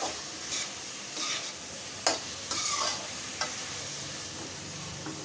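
A metal spoon stirring and scraping onions, tomatoes and spices frying in a little oil in a metal kadai, over a steady sizzle. A few sharp clicks of spoon on pan, the loudest about two seconds in.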